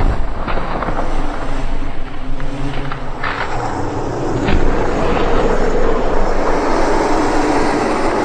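Sound-designed creature noise for the Skinned Houseguest: a loud, rough, steady rumble that cuts in suddenly, with a few sharp crackles in the first half.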